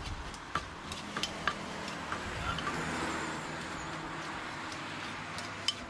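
Street traffic: a vehicle passes, its sound rising to a peak about halfway through and easing off, with scattered light knocks of a wooden pestle in a clay mortar.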